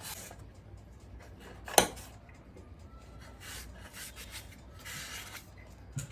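Wiping and rubbing inside an industrial sewing machine's oil reservoir as the drained, dirty sump is cleaned out, in several short scrapes. A single sharp click just under two seconds in.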